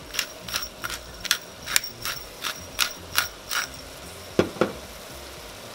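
Pepper mill being twisted over the pot: a run of about ten even, ratchet-like clicks, two or three a second. Then two sharper knocks, close together, about four seconds in.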